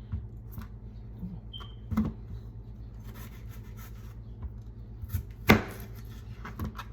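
Kitchen knife cutting red-skin potatoes on a cutting board: a few scattered sharp knocks of the blade on the board, the loudest about five and a half seconds in.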